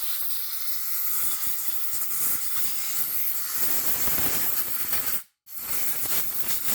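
Compressed air hissing from a blow gun, blowing dirt out of a car's power-window switch. One long blast cuts off a little after five seconds in, then a second, shorter blast follows.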